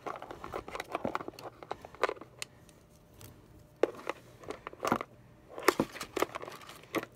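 Small rubber figural bag clips with plastic clasps being handled and stood up on a tabletop: scattered light taps, clicks and rattles of plastic, with a few sharper knocks about five to six seconds in.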